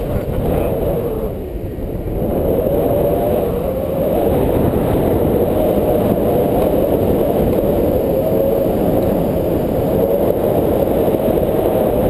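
Wind rushing over an action camera's microphone in tandem paraglider flight: a loud, steady, low, dull rush that eases briefly about a second and a half in.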